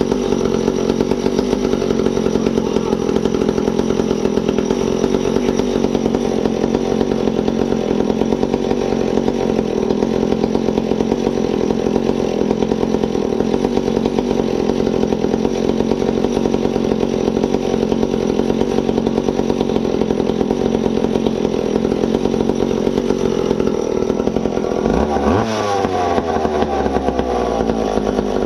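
McCulloch Pro Mac 1010 two-stroke chainsaw engine running steadily, with a shift in engine pitch near the end.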